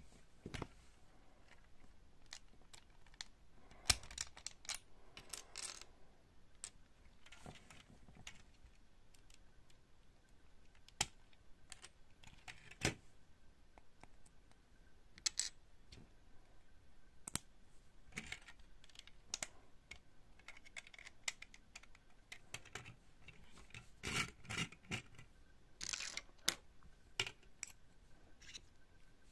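LEGO bricks being handled: irregular small plastic clicks and clatter as pieces are picked up, set down and pressed together, busier around four to six seconds in and again around twenty-four seconds in.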